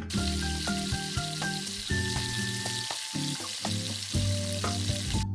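Hot oil sizzling steadily as a breaded corn dog fries, with background music playing under it.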